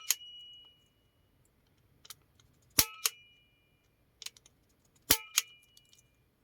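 Spring-loaded impact punch-down tool firing three times, about two and a half seconds apart, seating Ethernet wires into the IO port's contacts. Each strike is a sharp double snap with a short metallic ring.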